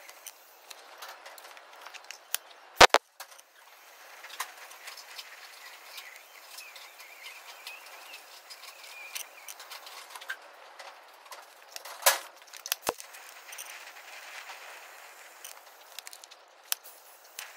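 TIG welding arc hissing and crackling steadily as filler rod is fed into the worn kingpin bearing bore of a forklift axle, building the bore up with weld. A few sharp cracks stand out, the loudest about three seconds in and about twelve seconds in.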